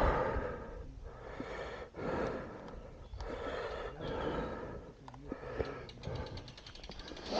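A person breathing hard close to a chest microphone, in and out about once a second. A fast, fine ticking comes in near the end.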